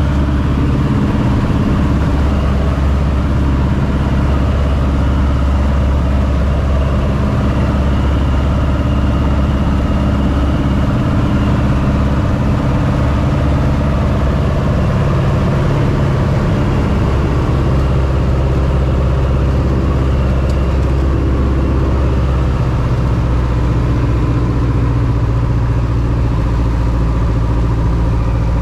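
Two-seat light aircraft's piston engine and propeller droning steadily in flight, heard from inside the cockpit. The engine note shifts slightly a couple of times partway through.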